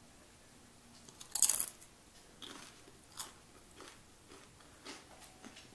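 A salted tortilla chip with salsa being bitten and chewed: one loud crunch about a second and a half in, then a few quieter crunches as it is chewed.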